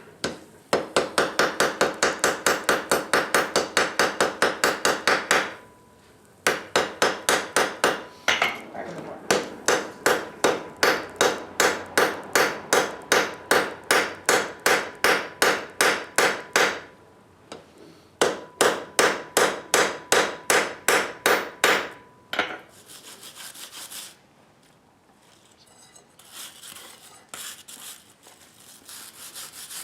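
Hammer blows on hot steel over an anvil, coming in three long runs of about four to five blows a second, with the anvil ringing under them. This is a forge-weld attempt being hammered together. A quieter rasping noise follows near the end.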